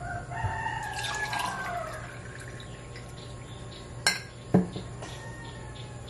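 A rooster crowing once, its call falling in pitch at the end. About two seconds later come two sharp knocks, half a second apart.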